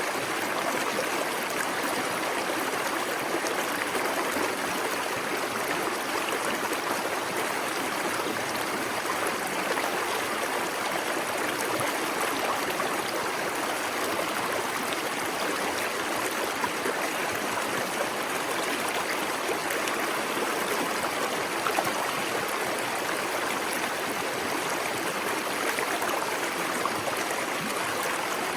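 Small waterfall pouring into a plunge pool: a steady rush and splash of falling water.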